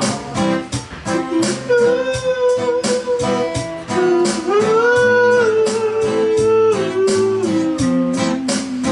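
Music: a strummed guitar, with a slow melody of long held notes that glide from one pitch to the next.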